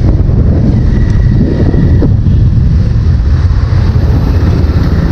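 Motorcycle running at riding speed in traffic, its engine heard through a steady, loud rumble of wind on the action camera's microphone.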